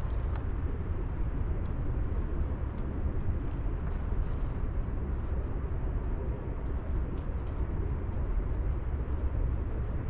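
Steady low outdoor rumble, with a few faint high ticks about four and seven seconds in.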